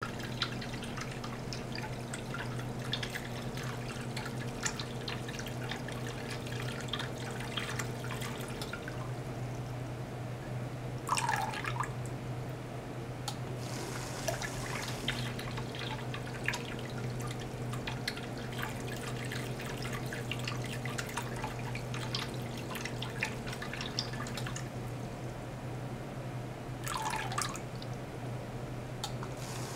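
Water circulated by a small bench pump running through tubing and splashing and dripping into a plastic tub: a steady low hum under a constant patter of small drips. Twice, about 11 seconds in and near the end, a short gurgle slides down in pitch.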